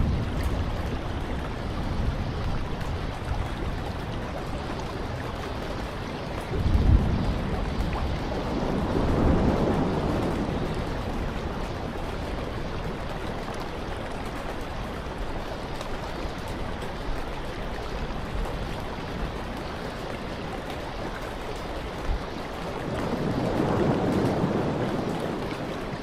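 Heavy surf breaking on a rocky shore: a continuous rush of water and wind that swells in slow surges, with a low thud about seven seconds in.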